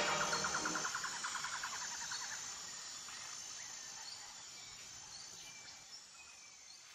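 Faint outdoor ambience of insects trilling in fast rhythmic pulses, with a few short bird chirps, fading out gradually.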